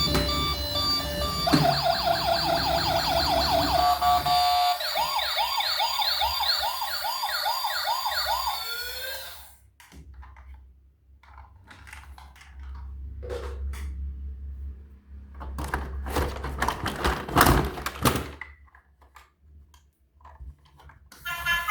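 Electronic toy-vehicle siren: a fast rising yelp for a couple of seconds, then slower rising wails about twice a second, cutting off about nine seconds in. Scattered knocks and clicks follow, with the loudest thumps a few seconds before the end.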